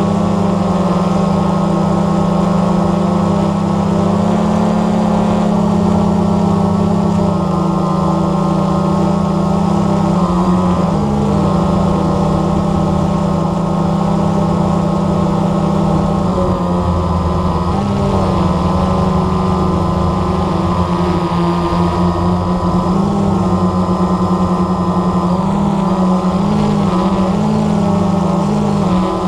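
Blade 350 QX3 quadcopter's electric motors and propellers humming steadily in flight, recorded from the camera on board; the pitch wavers briefly several times as the motors change speed.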